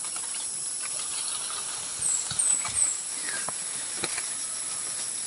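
A small bird gives three quick, high chirps, each falling in pitch, about two seconds in, over a steady high hiss. A couple of light clicks follow soon after.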